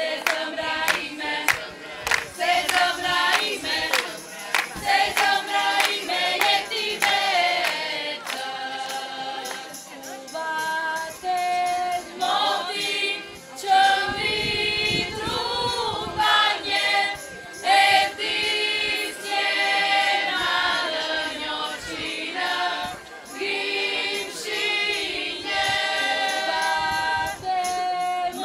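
A group of Arbëreshë women singing a vallje folk song together, with hand clapping in time through roughly the first eight seconds.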